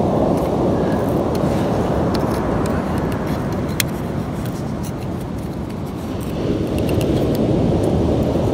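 A metal blade scraping and picking at dried clay around a fossil lobster, with scattered small clicks, over a steady low rumble.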